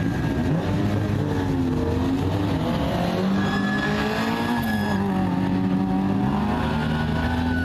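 Rally car engines revving, their pitch rising and falling, with a second rally car driving close past about midway.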